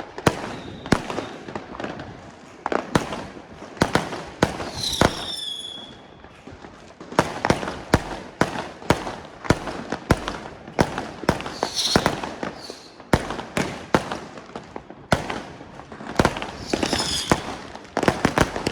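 Fireworks going off in rapid, nonstop succession: many sharp bangs and cracks, with a high whistling tone three times, about five, twelve and seventeen seconds in.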